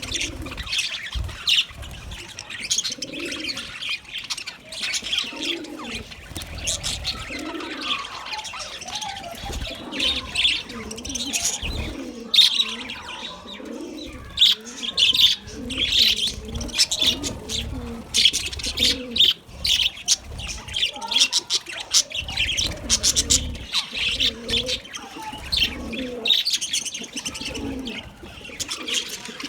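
Budgerigars chattering with continual rapid high chirps and warbles, and low coo-like notes underneath.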